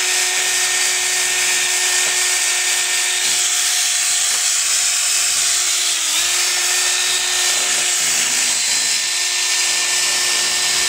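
Electric drill spinning a brass wire brush inside a gutted motorcycle muffler outlet, scrubbing the metal clean: a steady hiss of bristles on metal over a constant motor whine. The whine dips briefly in pitch about six seconds in as the brush takes load.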